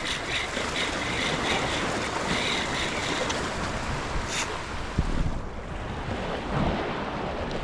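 Ocean surf washing against a shoreline wall, with wind buffeting the microphone. A repeating high-pitched whir pulses through the first three seconds, and a single knock sounds about five seconds in.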